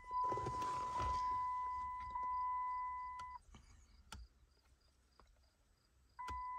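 Car's electronic warning chime sounding a steady high beep for about three seconds, with some rustling at the start. It stops, and after a short click it beeps again for about a second near the end.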